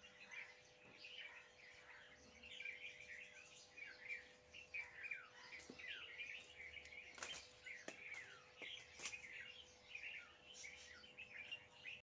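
Faint, busy bird chirping: many short chirps and quick falling calls overlapping, with a few sharp clicks a little past the middle.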